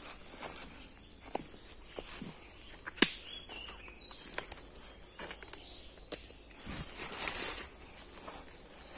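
Footsteps crunching through dry leaf litter and twigs on a forest floor, with irregular sharp cracks, the loudest about three seconds in. A steady high insect buzz runs behind them.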